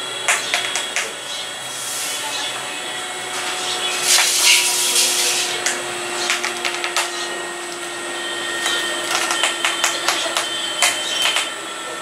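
House sparrows chirping and tapping at a mirror on a wooden ledge, with a brief rush of wing flutter about four seconds in, over a steady background hum.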